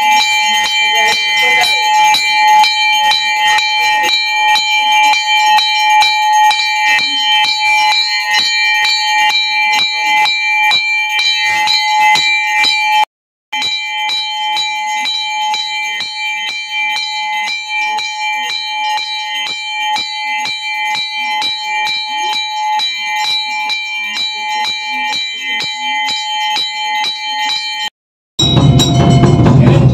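Hanging brass temple bell rung continuously, its clapper striking it several times a second and keeping up a steady ringing tone. The ringing cuts out for a moment about halfway through and stops shortly before the end.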